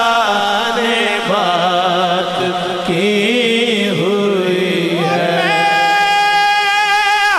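Male voice singing a naat, an unaccompanied Urdu/Punjabi devotional hymn, in long wordless melismatic notes with vibrato, over a second, lower voice holding notes beneath. A long steady high note is held from about five and a half seconds in.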